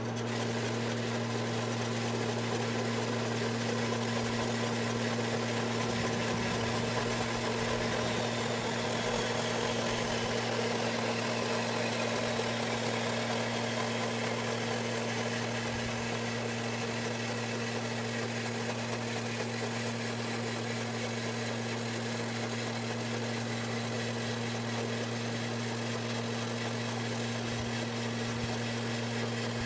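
Horizontal metal-cutting band saw running steadily, its blade sawing through a metal frame tube: a constant motor hum under an even cutting noise.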